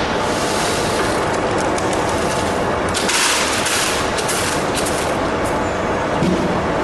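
Dry plastic flakes clattering as they are tipped from a wooden trough into a plastic crate, in a rapid rattle that is heaviest about three seconds in. Behind it, steady machine noise.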